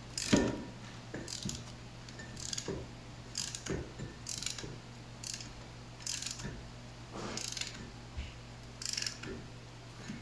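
Brake caliper piston retraction tool being worked on a 2016 Dodge Ram 1500's rear caliper, giving short mechanical clicks at uneven intervals, about one a second, as it pushes the caliper pistons back in to make room for new pads.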